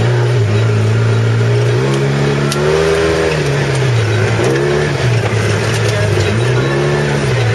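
Polaris RZR side-by-side's engine heard from on board, its pitch rising and falling several times as the throttle is worked over rough ground, with a few sharp clicks over it.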